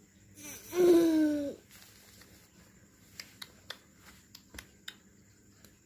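A young child's single voiced cough about a second in, pitched and falling slightly; the child's cough is lingering. A few faint clicks follow.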